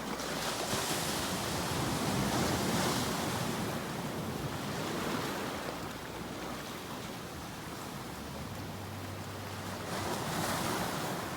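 Ocean waves breaking and washing, the surf swelling over the first few seconds, easing off, then swelling again near the end.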